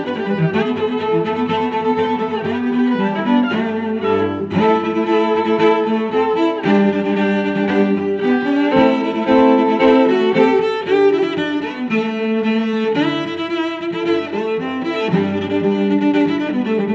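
Background music played on bowed strings, with held notes changing every second or so.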